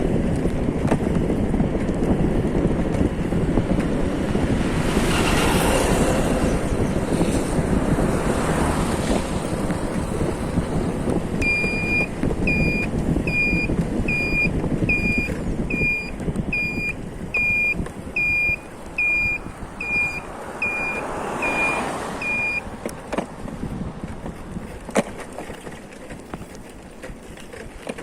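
Steady rumble of a moving vehicle, which gets quieter in the second half. From about twelve seconds in, a high electronic beep repeats evenly about fifteen times, roughly once every 0.7 seconds, then stops.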